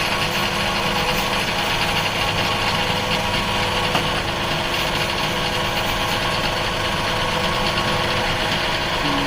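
Hydraulic hose crimping machine's power unit running steadily, with a constant drone and no change in pitch.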